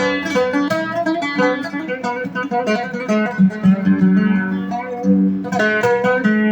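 Oud being played, an Eastern-style melody of plucked notes with quick runs of repeated picking.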